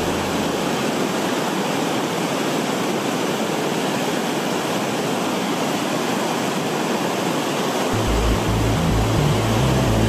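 Rushing whitewater of a river cascading over rock ledges, a steady, even roar of water. Low bass from background music comes back in about eight seconds in.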